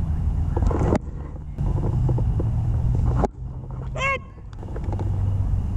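Low, steady wind rumble on a GoPro action camera's microphone, breaking off abruptly twice, with faint distant voices and one brief high-pitched call about four seconds in.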